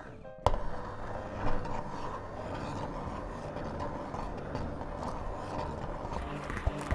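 Immersion blender running in a pot of milky broccoli soup, its blade churning and puréeing the cooked broccoli. A sharp click about half a second in, then the motor and blending run steadily.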